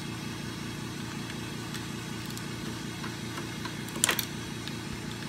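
A small ratchet working the clutch spring bolts on a Kawasaki KLX 140 engine, giving a few faint clicks and one sharp metallic clack about four seconds in. Under it runs a steady low machine hum.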